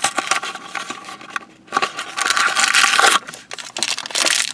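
Blind-bag wrapper crinkling and tearing as it is handled and opened, a run of sharp crackles with a dense, loudest stretch of crinkling about two to three seconds in.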